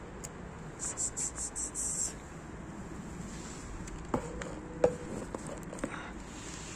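A short insect chirp: about seven high-pitched pulses, evenly spaced, lasting just over a second, over steady outdoor background noise. Two sharp clicks follow about four and five seconds in, the second one the loudest.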